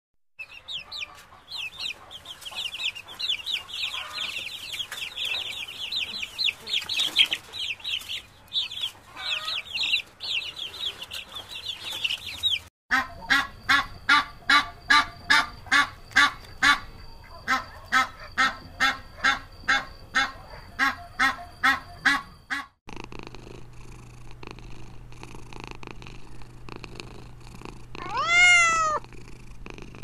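Chicks peeping rapidly and shrilly, with a hen nearby; then grey domestic geese honking, about two calls a second; then a kitten purring steadily, with one meow near the end.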